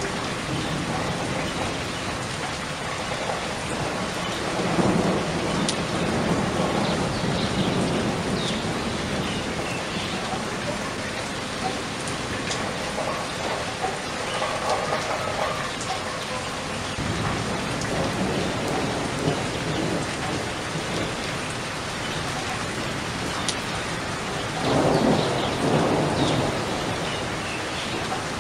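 Steady rain with two low rumbles of thunder, one swelling about five seconds in and another near the end.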